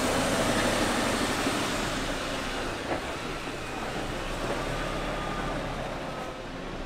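Mercedes-Benz Arocs 8x8 tipper truck's diesel engine running as the truck drives off-road over gravel, growing fainter as it moves away.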